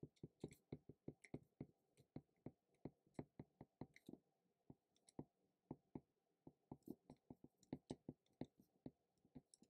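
Faint, quick clicks and taps of a stylus writing on a tablet screen, several a second, pausing briefly now and then.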